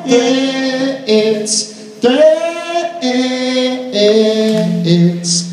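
Two male voices singing long held notes in harmony, live, stepping from one note to the next about once a second.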